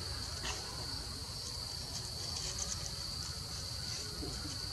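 A steady, high-pitched drone of insects chirring in the undergrowth.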